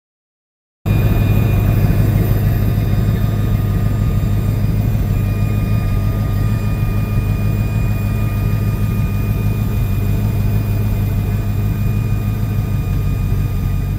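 Garden-scale model diesel locomotive running along its track: a steady whir of its electric motor and gears over a low hum, starting abruptly about a second in.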